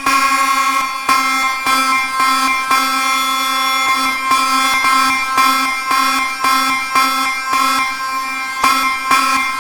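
School fire alarm sounding continuously: a loud, steady buzzing horn tone, roughened by frequent uneven pulses.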